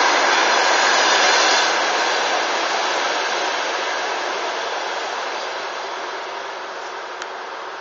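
Passenger train coaches rolling past on the rails, a steady rush of wheel noise that starts to fall away after about a second and a half and keeps fading as the last coach recedes.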